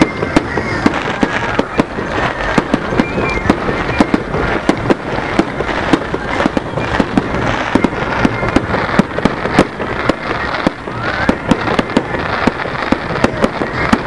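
A fireworks display going off in quick succession: a dense, irregular run of sharp bangs and crackles, several a second, over a steady rumbling hiss.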